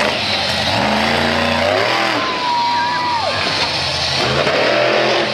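Monster truck engine revving hard under a steady loud roar, its pitch climbing about a second in and again near the end.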